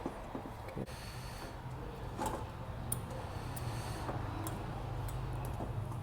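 A few scattered small metallic clicks and ticks as new brake pad hardware clips are pressed onto a caliper bracket, over a steady low hum.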